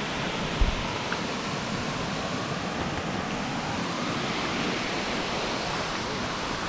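Small waterfall and creek water rushing, a steady even hiss, with a brief low thump about half a second in.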